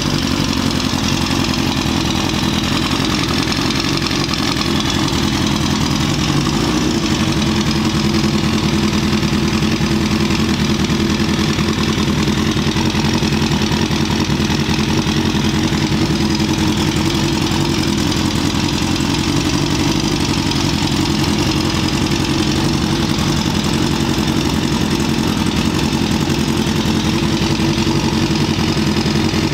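Suzuki GSX-R1000 inline-four motorcycle engine in a dwarf race car, idling steadily on its first heat cycle after being freshly built.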